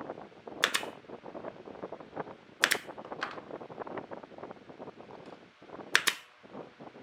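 Woodworking tool sounds: a fast, steady clatter of small knocks on wood, broken by four sharp, loud cracks.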